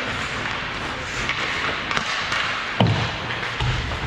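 Hockey game sounds: a steady rink din with one sharp thump about three seconds in, a hit from play on the rink.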